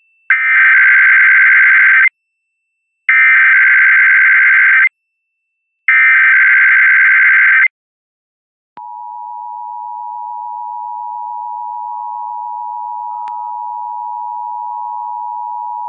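Emergency Alert System test tones: three bursts of SAME header data, each just under two seconds with about a second between them, then after a short pause the steady two-tone EAS attention signal (853 and 960 Hz), starting a little past the middle and still sounding at the end.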